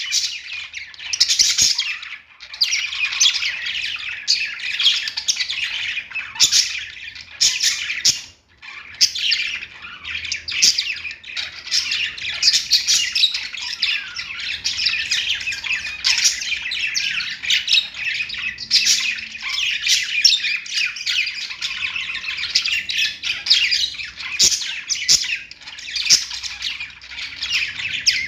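Budgerigars chirping and warbling continuously, a dense stream of short chirps from several birds, with brief lulls about two and eight seconds in.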